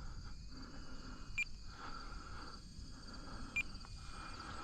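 Quiet outdoor ambience with a steady, high insect-like hiss, broken by two short high chirps about two seconds apart.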